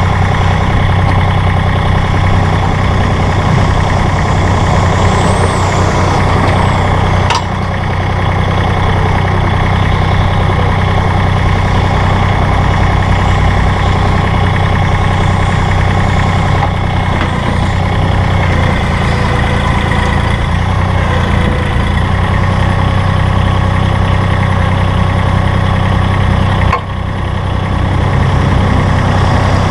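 Diesel engine of a Massey Ferguson GC-series sub-compact tractor running steadily. There is a sharp click about seven seconds in and a brief dip in loudness near the end.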